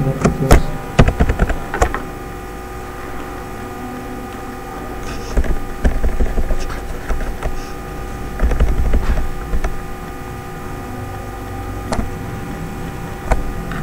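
Scattered clicks of a computer keyboard and mouse: a quick run of clicks in the first two seconds, then a few more spaced out. They sit over a steady electrical hum.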